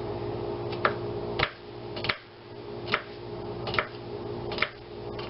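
Knife slicing garlic cloves on a cutting board: six sharp taps, roughly one every half second to second, over a steady background hum.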